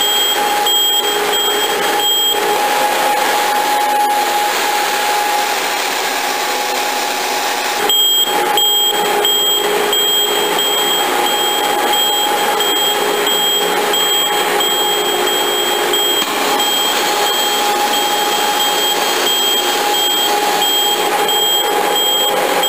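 Karlville K5 Compact shrink sleeve seaming machine running at speed: a steady mechanical hum with a held whine, over a quick, regular high-pitched beeping that goes on throughout.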